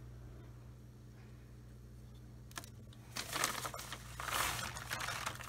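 Clear plastic bag of chunky potting mix crinkling and rustling as a hand reaches in and scoops out media, starting about three seconds in, with small gritty crackles of the loose mix. Before that only a faint steady low hum.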